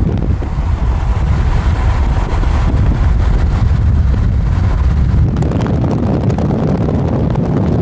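Steady low rumble of wind buffeting the microphone and road noise from a moving car.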